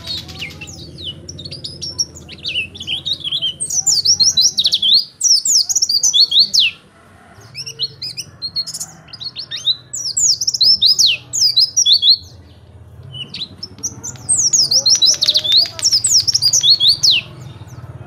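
A caged white-eye (pleci) singing a fast, high twittering song, sung in long bursts a few seconds each with short pauses between.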